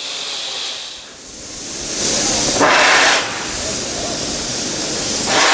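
Steam locomotive hissing steam, with a loud burst of hiss about two to three seconds in lasting about a second, and another starting near the end.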